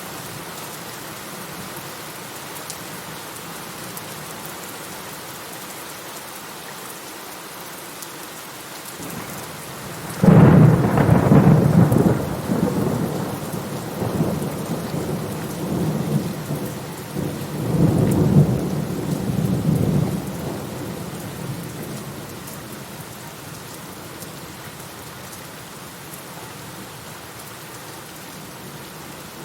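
Steady rain falling, with a thunderclap about a third of the way in that cracks suddenly and rolls on in low rumbles, swelling again about two-thirds through before dying away into the rain.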